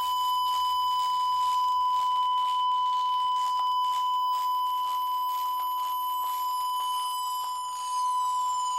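Electronically generated test tone: a steady pure beep at about 1 kHz, held throughout, with a second tone gliding slowly down in pitch toward it near the end.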